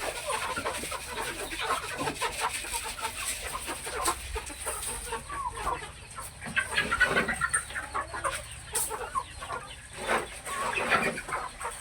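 A flock of chickens clucking, several birds calling over one another without a break.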